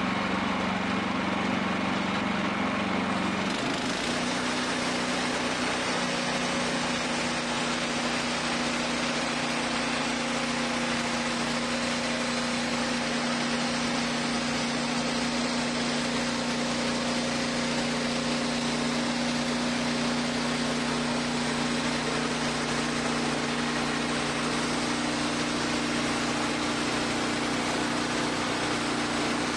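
Wood-Mizer band sawmill running. About three and a half seconds in, the engine note shifts higher and a steady hiss joins it, and it holds steady from then on.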